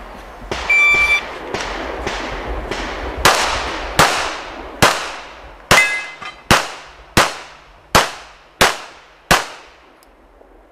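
Shot-timer beep about a second in, then a string of 9mm pistol shots from an S&W M&P9 Pro: a few fainter ones first, then about nine loud shots roughly one every three-quarters of a second. A steel target rings after a hit partway through the string.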